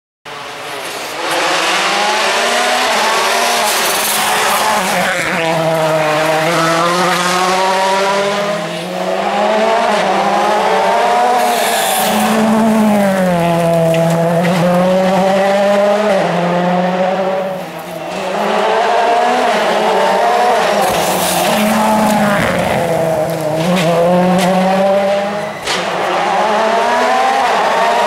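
World Rally Cars, Ford Fiesta RS WRCs among them, each with a 1.6-litre turbocharged four-cylinder, pass one after another at stage speed. The engines rev high, and the pitch climbs through the gears, then drops off when the cars brake for corners. There are short dips in loudness between passes.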